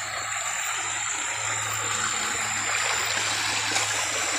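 Shallow stream running and trickling over rocks, a steady rush of water with a constant low hum underneath.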